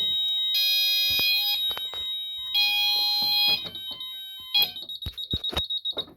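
Fire alarm sounders in alarm: a high electronic tone pulsing about one second on and one second off over a steady high tone. About three and a half seconds in, the loud sounder stops, leaving a fainter, fast-pulsing high tone and a few sharp clicks.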